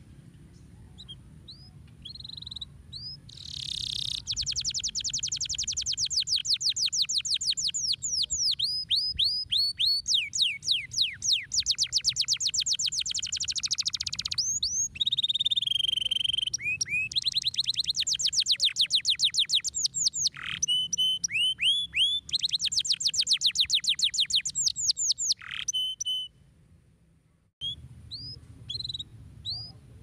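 Domestic canary singing: after a few scattered chirps, long fast trills of rapidly repeated falling notes follow one after another, broken by brief pauses. Near the end there is a short gap, then scattered chirps.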